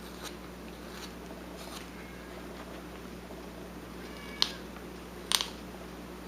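A carving knife taking small cuts in wood: faint light clicks, then two sharper, louder snaps about a second apart, each with a brief squeak.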